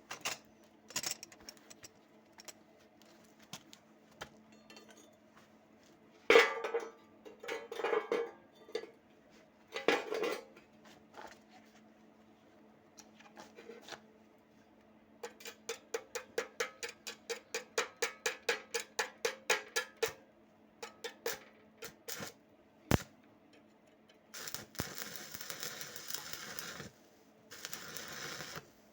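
Metal clinking and clanking as steel pieces are handled, with a sharp knock about six seconds in. Midway there is a fast, even run of clicks, about four a second, for some five seconds, and near the end two bursts of hissing.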